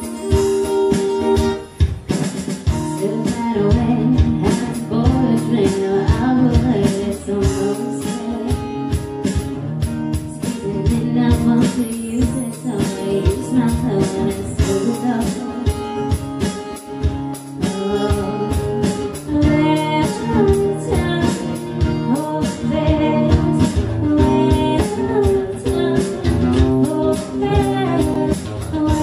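A woman singing through a microphone, accompanied by acoustic guitar and a drum kit in a live band performance.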